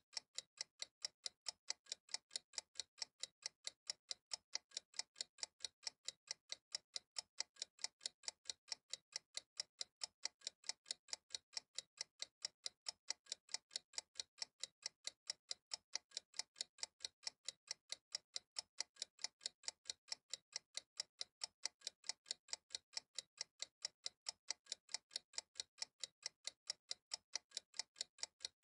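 Steady, even clock ticking, the clicks evenly spaced and unchanging throughout.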